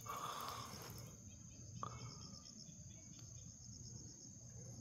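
Faint, steady high-pitched chirring of insects, over a low rumble, with a brief rustle at the start.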